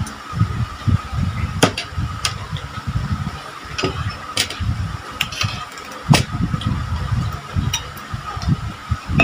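Close-up chewing and crunching of fried chicken and fried pork: irregular low mouth thumps with sharp, crisp crunches and clicks every second or so.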